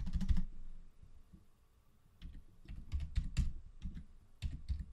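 Typing on a computer keyboard: a quick run of keystrokes at the start, a pause of about a second, then more separate keystrokes.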